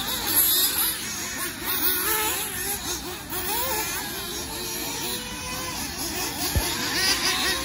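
Several fuel-powered RC off-road race cars running together, their small engines whining and revving up and down over one another as they race. A brief low thump comes near the end.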